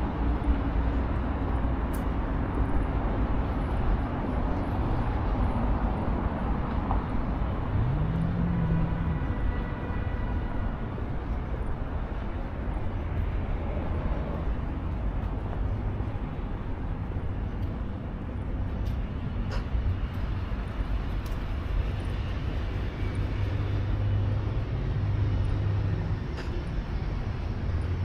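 City street ambience: a steady rumble of road traffic, with a short rising tone about eight seconds in.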